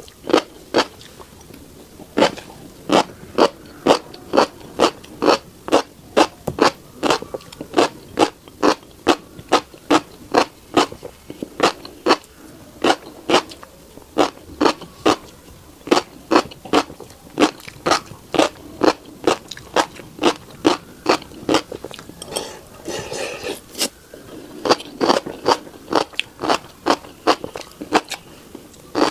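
Close-miked chewing of a mouthful of tiny black seeds: a steady run of crisp crunches, about two a second. There is a brief pause about two seconds in, and a softer rustling stretch about two-thirds of the way through.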